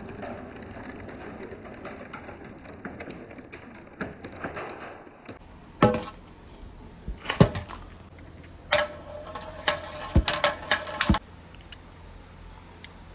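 Marbles rolling and clattering along a marble run: a continuous rattle of many marbles for about five seconds, then, after an abrupt change, separate sharp clacks of marbles striking each other and the track, with a quick flurry of clicks a little past the middle.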